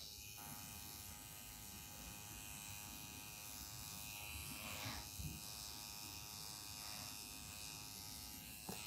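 Permanent makeup tattoo machine's small motor running with a faint, steady electric buzz, and one light click near the end.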